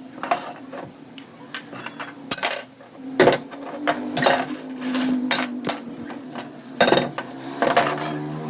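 Metal vise parts being handled and set down, giving a string of irregular clinks and knocks of varying loudness, with the louder ones about three, four and seven seconds in.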